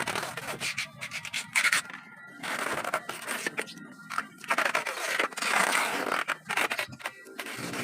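Irregular scraping and rustling from parts being handled, broken by short clicks.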